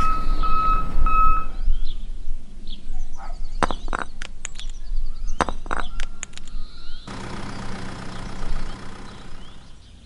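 Small clay toy bricks clattering with sharp clicks as they are tipped and pushed out of a miniature toy trailer, in two short bursts. Before them there is a quick row of four even beeps, and after them a steady hum.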